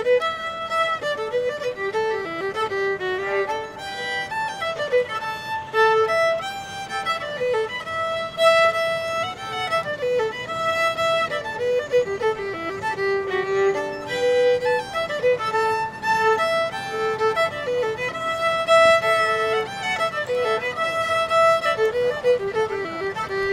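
Background music: a fiddle playing a tune.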